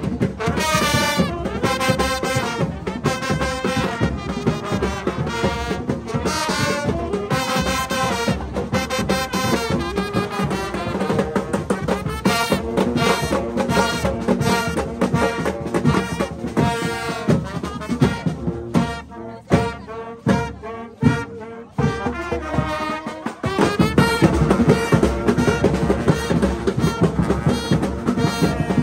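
Marching brass band playing live: sousaphone, trumpets, trombones and saxophones over drums. About two-thirds through, the horns thin out for a few seconds, leaving mostly drum strokes, before the full band comes back in.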